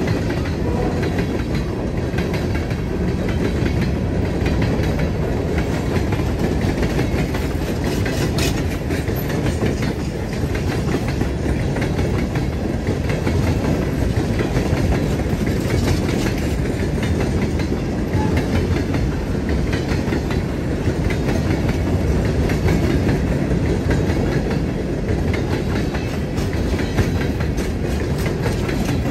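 Freight cars of a long train, covered hoppers and gondolas, rolling past close by: a steady rumble of steel wheels on rail with continual clicking as the wheels pass over rail joints.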